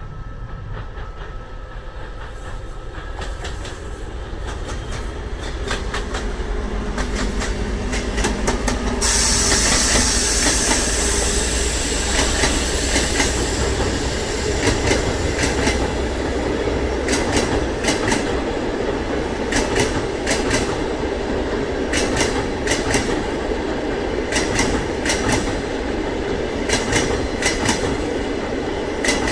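TEP70BS diesel locomotive hauling a passenger train, its engine drone growing louder as it approaches and loudest as it passes about nine seconds in, with a sudden rush of hiss. The coaches then roll by with a steady clickety-clack of wheels over rail joints in paired knocks.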